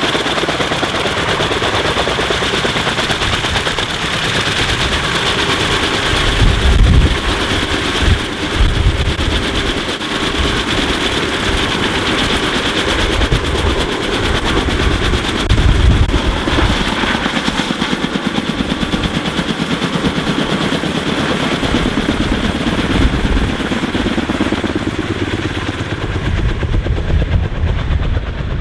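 Kaman K-MAX (K-1200) helicopter's intermeshing twin rotors beating in a rapid, even chop over the steady whine of its turbine as it lifts off and climbs away. Heavy low buffeting comes about seven and sixteen seconds in, and the sound thins out near the end as the helicopter draws off.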